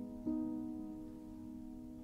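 Soft background music: a single plucked-string chord struck about a quarter second in, left to ring and slowly fade.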